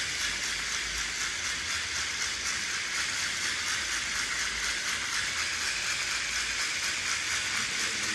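Hand winder winding the rubber motor of a rubber-powered model plane: a steady whirring with a fast, even ticking that cuts off at the end as the winding stops.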